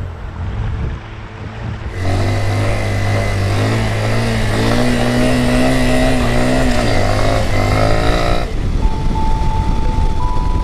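Honda CRF230L's air-cooled single-cylinder four-stroke engine running as the bike is ridden, its pitch rising and falling with the throttle and getting louder about two seconds in. Near the end the engine sound drops back and a simple tune of held notes comes in.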